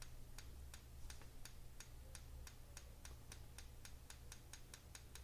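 Strobe light ticking faintly with each flash, about four to five even ticks a second, over a low steady hum: the light is firing again after its failed capacitor was replaced.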